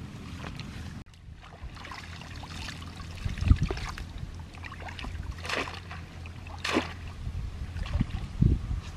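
Hands sloshing and splashing in shallow muddy water while a woven bamboo fish trap is worked into place, with several short, louder splashes in the second half. A steady low hum runs underneath.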